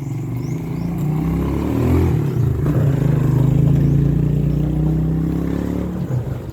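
A motor vehicle's engine passing close by, getting louder toward the middle and fading near the end.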